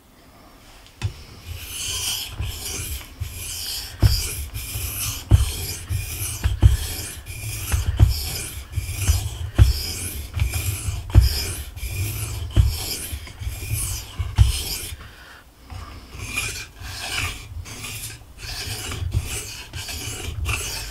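A knife blade stroked back and forth by hand across a KUNQUN white-corundum whetstone, its 1000-grit face: a rasping scrape about twice a second, with occasional dull knocks. The strokes pause briefly about fifteen seconds in, then start again.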